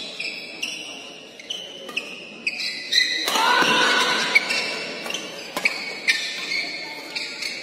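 Badminton rally in a large hall: sharp racket strikes on the shuttlecock and short high squeaks of court shoes on the floor. About three seconds in, a voice shouts loudly for a second or so.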